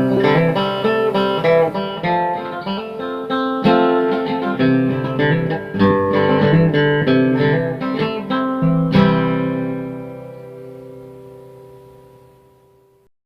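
Intro music: guitar playing a quick run of plucked notes, ending on a chord about nine seconds in that rings and fades away.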